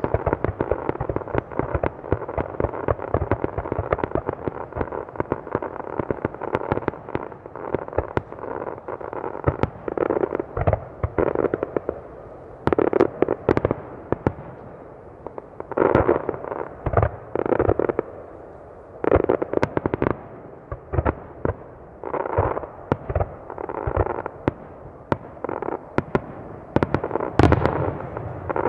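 Aerial fireworks shells bursting in rapid, overlapping succession, a continuous run of bangs and reports with several louder volleys in the middle and near the end.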